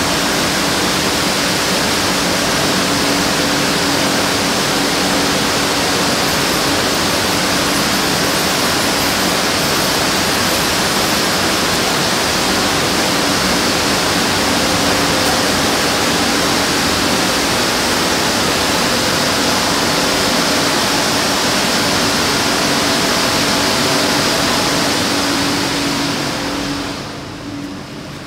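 Eleven-brush automatic tunnel car wash running: water sprays hissing and rotating brushes churning against a car, over a steady motor hum. The noise falls off sharply near the end.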